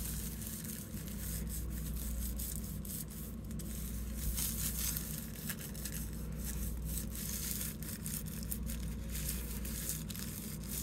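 Hands rubbing and pressing thin artist tissue paper down over plant stems on a gel printing plate: an irregular soft rustling and crinkling, over a steady low hum.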